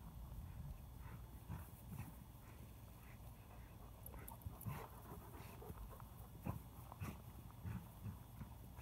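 Dogs scuffling and pulling on a tug rope in dry grass: irregular soft thumps and rustling of paws and bodies.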